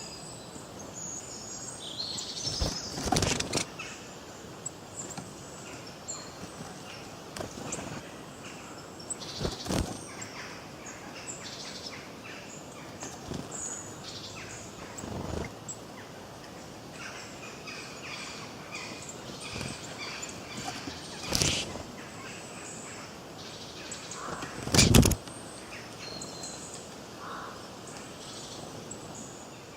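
Forest birds chirping and singing in short scattered calls over a steady background hiss, broken by a handful of brief thumps, the loudest near the end.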